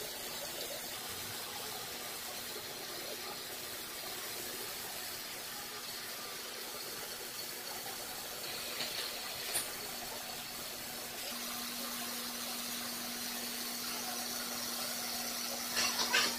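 A CNC machine running with a steady hiss. A low steady hum joins about eleven seconds in, and there are a few short clicks near the end.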